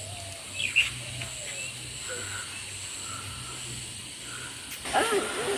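Outdoor wildlife calling: a high insect buzz repeating in short pulses, a few short chirps and croaks, and a louder pitched call near the end.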